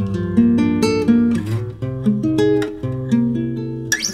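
Background music: an acoustic guitar plucking a melody, a new note every half second or so over held low notes.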